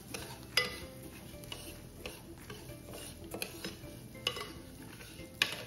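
Metal spoon stirring and scraping dry arborio rice in hot olive oil in an enamelled pan, with sharp clinks of the spoon on the pan about once a second. The rice is being toasted to a pearly sheen before the wine goes in.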